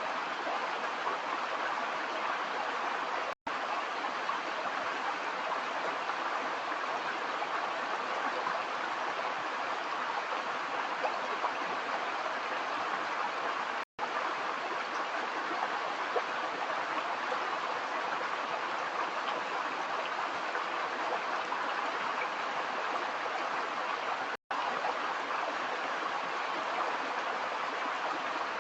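Stream water running steadily over stones, an even rushing flow. The sound drops out to silence for an instant three times.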